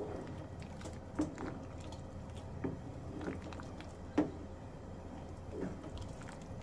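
Wooden spatula stirring a thick, simmering beef stew in a metal pot: wet squelching of meat and broth, with a handful of short knocks as the spatula strikes the side of the pot.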